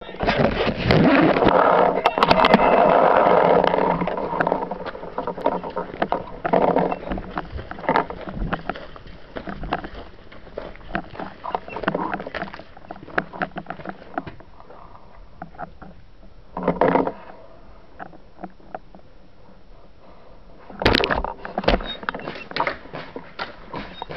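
Footsteps and gear handling noise of a paintball player on the move, with many small clicks and knocks from the marker and kit. A dense rush of rubbing noise fills the first few seconds, and there are two brief louder rustling bursts, one around the middle and one near the end.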